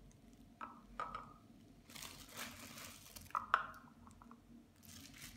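Hard plastic pasta-maker shaping discs and accessories being handled on a table. There are a few sharp plastic clicks and knocks as pieces are stacked and set down, the loudest about three and a half seconds in, with some rustling in between.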